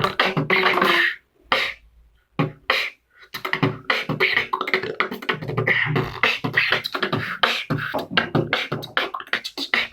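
Beatboxing: a fast stream of kick, snare and hi-hat sounds over a steady held hum. It breaks off about a second in, leaving a few lone hits, and starts up again about three seconds in.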